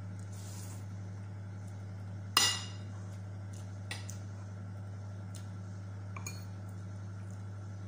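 Metal spoon clinking against a ceramic plate a few times, the loudest clink about two and a half seconds in, over a steady low hum.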